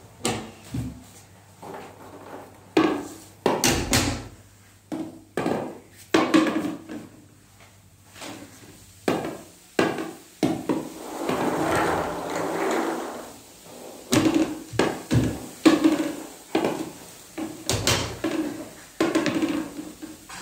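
Wooden lotto drawing barrel turned by hand, the balls inside tumbling and knocking against the wood in a run of irregular knocks, with a longer rolling rumble partway through.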